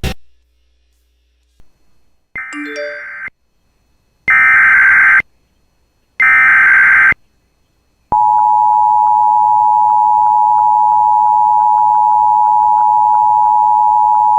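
Emergency Alert System SAME header: three one-second bursts of data screech, about two seconds apart. Then, about eight seconds in, the steady two-tone EAS attention signal starts, opening a new tornado warning.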